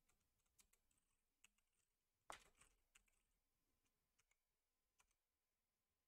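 Faint computer keyboard typing: a few scattered, irregular keystrokes, the loudest a little over two seconds in.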